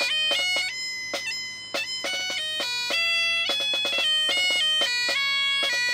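Great Highland bagpipes playing a stepping melody with quick grace notes over their steady low drone.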